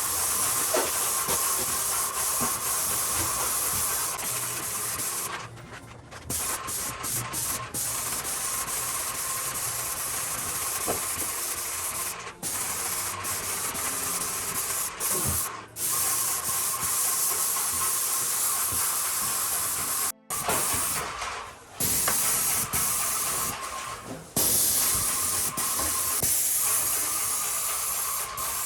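Steady hiss of paint being sprayed onto basement walls, broken by several brief dropouts.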